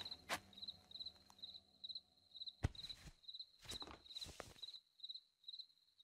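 Crickets chirping steadily, about two chirps a second, with a few soft knocks and a brief splash in the middle as hands dip into a water barrel.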